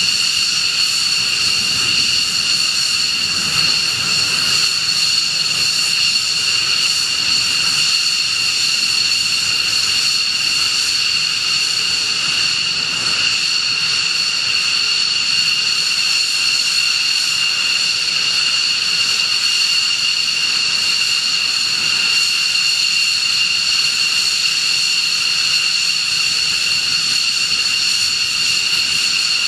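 F-15C Eagle's twin Pratt & Whitney F100 turbofans at taxi power: a steady, high-pitched jet whine over a rushing hiss.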